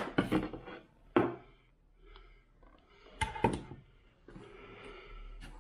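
Several sharp knocks and clunks of hard objects being handled and set down: a cluster right at the start, one about a second in, and a quick pair past the three-second mark.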